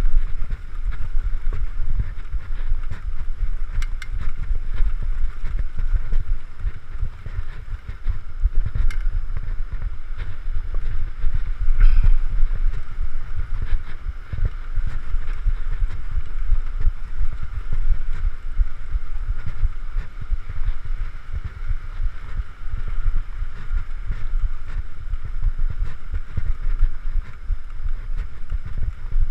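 Mountain bike riding down a dirt forest singletrack: wind buffeting the camera microphone over an unsteady rumble of tyres and trail, with scattered sharp clicks and knocks.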